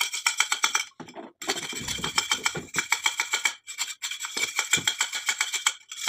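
A steel wire scraping back and forth inside the blocked tubes of an electric geyser's heating-element flange, in rapid repeated strokes that clear the blockage. The scraping breaks off briefly about a second in, near four seconds and just before the end.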